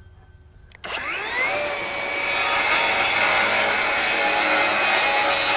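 Flex FX2141R 24-volt brushless rear-handle circular saw with a 7-1/4-inch blade, starting about a second in with a rising whine as it spins up, then cutting loud and steady through pressure-treated 2x lumber without bogging down.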